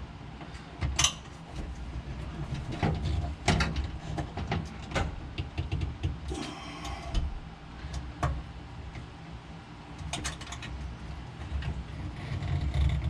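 Hand tools clicking and knocking against metal fittings while bolts are tightened down, with a brief metallic rattle about six and a half seconds in and a low handling rumble underneath.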